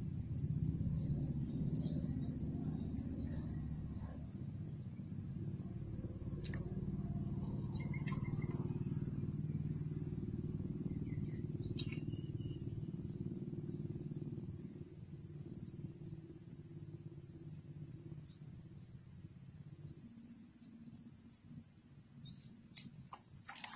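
Outdoor ambience: a steady high drone, short falling bird chirps every second or two, and a low rumble that drops away a little past halfway.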